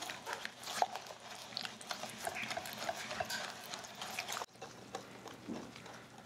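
Silicone whisk beating an egg yolk into a thick, syrupy mixture in a glass bowl: wet squelching and slapping with quick small clicks. It drops sharply about four and a half seconds in, and quieter stirring goes on after.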